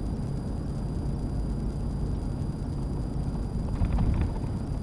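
Steady low rumble of a Ford F350 diesel pickup's engine and tyres on the highway, heard from inside the cab, with a brief louder bump about four seconds in.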